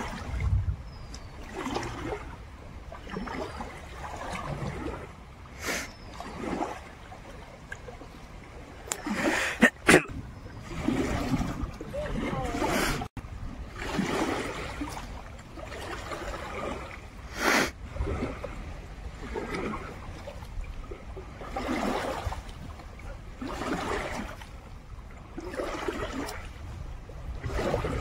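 River water lapping and splashing against a rocky bank, swelling in waves every couple of seconds, with a couple of sharp knocks about ten seconds in.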